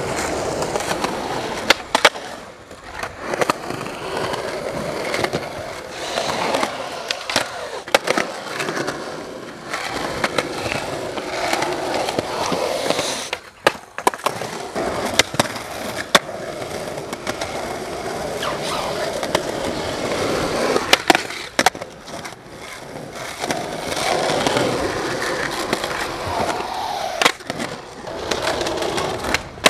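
Skateboard wheels rolling over concrete, broken by sharp clacks of the board hitting the ground several times. The rolling drops out briefly about halfway through.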